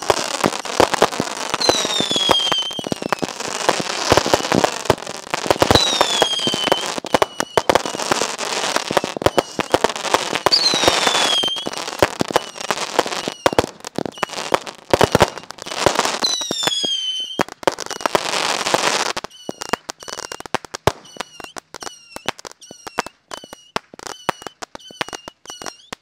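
Small consumer fireworks going off in rapid succession: dense crackling and popping with a falling whistle every few seconds. Later on it thins to single sharp pops about twice a second, each with a short whistle.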